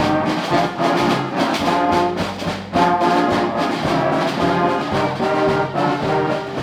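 Band music: brass instruments playing sustained chords over a steady drum beat of about two strokes a second.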